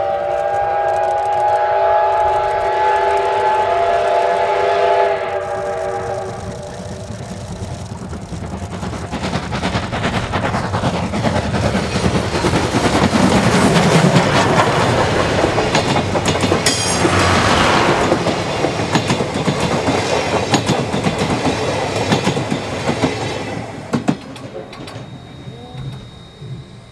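C57 1 steam locomotive sounds a long blast on its steam whistle, held about six seconds. The train then comes past, with its running noise and wheels clattering on the rails building to a peak around the middle and fading near the end.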